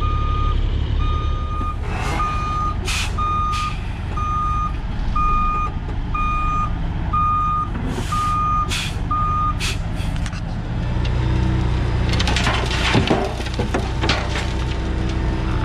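Dump truck reversing into position, its backup alarm beeping about once a second over the low running of diesel engines, with a few short hisses. The alarm stops about ten seconds in, the engine note deepens, and some clattering follows.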